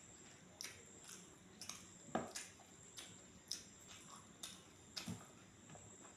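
Close-up eating sounds of rice being eaten by hand: wet mouth smacks and chewing clicks, irregular, about one or two a second, the loudest a little after two seconds in. A faint steady high-pitched tone runs underneath.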